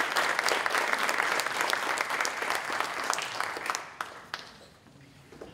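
Audience applauding, a dense spell of clapping that thins out and dies away about four seconds in.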